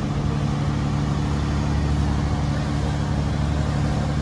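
Fishing boat's engine running at a steady speed, an even low drone.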